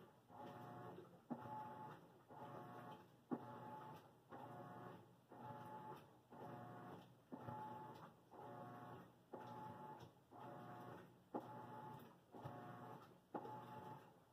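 A faint machine motor pulsing on and off in a steady rhythm, about once a second, with a sharp click roughly every two seconds.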